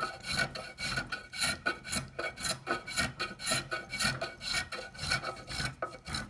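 Small brass hand plane, a reproduction Stanley No. 1, shaving the mahogany and basswood of a carved half hull in quick short strokes, about three a second. Each stroke is a dry scraping rasp. The planing stops abruptly at the very end.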